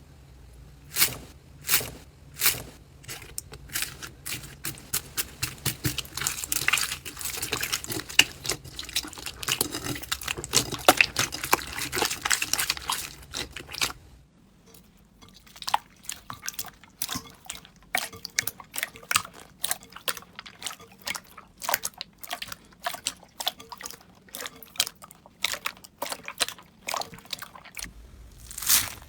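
Slime being squished and poked by hand, making rapid small wet pops, clicks and crackles. About halfway through the sound switches to a quieter run of sparser sticky pops.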